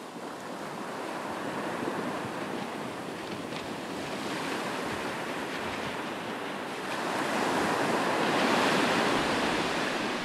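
A steady rushing noise like breaking surf, swelling louder about seven seconds in.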